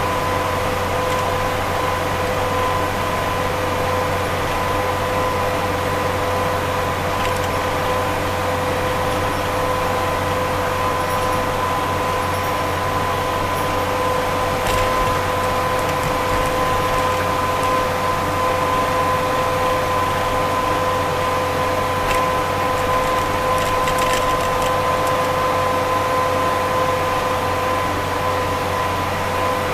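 Steady road and engine noise inside a vehicle's cabin while driving at highway speed, with a constant whine and a low hum running under it.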